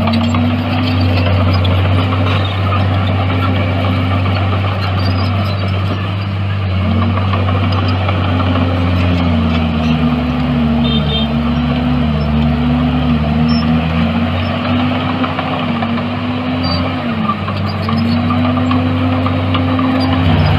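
Heavy earthmoving diesel engines running under working load, their pitch dipping and rising again and again as the load changes. A second, lower engine tone joins in the middle.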